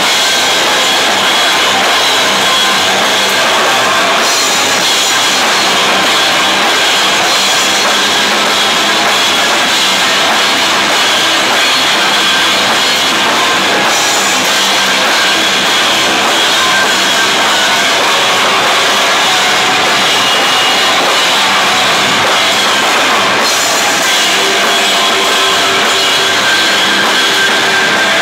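Loud, heavy rock band playing live, with a drum kit pounding under a dense, unbroken wall of sound.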